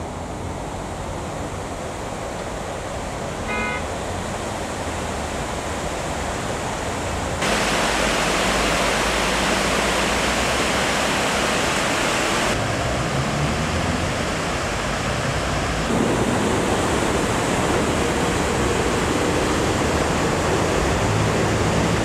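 River water rushing over a concrete weir and foaming below it, a steady noise of falling water that gets louder and brighter about seven seconds in. A short high-pitched tone sounds once, about three and a half seconds in.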